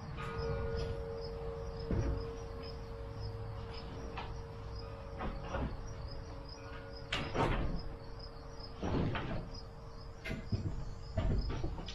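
Irregular wooden knocks, thumps and creaks as someone steps and climbs onto a stack of boards, the heaviest about seven seconds in and near the end. Crickets chirp steadily underneath in a fast, even pulse.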